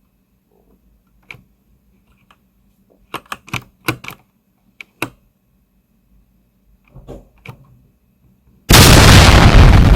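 Scattered light clicks and taps, then about nine seconds in a sudden, very loud explosion sound effect that dies away over a couple of seconds.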